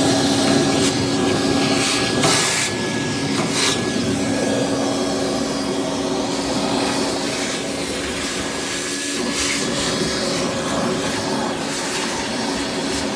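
Small vacuum cleaner running steadily with a hum, sucking lint out of the inside of a clothes dryer, with a couple of brief louder rasps about two and three and a half seconds in.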